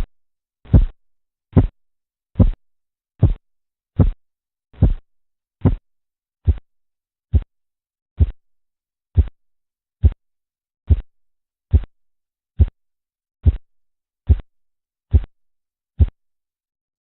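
Korotkoff sounds heard through a stethoscope over an artery under a deflating blood pressure cuff: about twenty short, low tapping thumps, one per pulse beat at roughly 70 a minute. They stop near the end.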